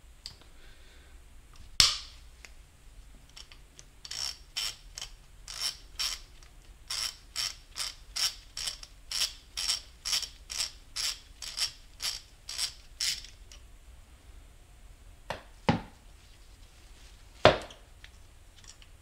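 Ratchet wrench clicking in a steady run of about twenty strokes, roughly two a second, as the 10 mm bolt holding the transmission speed sensor is backed out. There is a sharp click before the run, and a few sharp knocks near the end.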